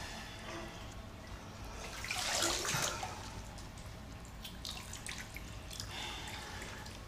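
Water sloshing and splashing in a bathtub as a person moves about in it, with a louder splash about two and a half seconds in and a smaller one near the end.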